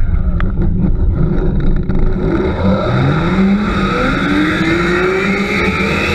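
Zip line trolley pulleys rolling down a steel cable, their whine rising steadily in pitch as the rider picks up speed, under heavy wind noise on the microphone.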